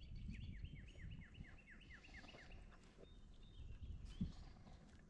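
A bird singing a fast run of about ten short notes, each sliding downward, in the first half, over a faint low rumble. A soft knock comes about four seconds in.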